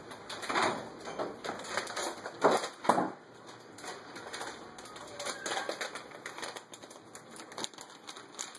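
Slotted wooden spatula stirring rigatoni in a stainless steel pan: irregular scrapes and taps of wood against the metal as the pasta is tossed with raw egg yolks off the heat to make a creamy sauce. The strokes are louder in the first three seconds, then lighter.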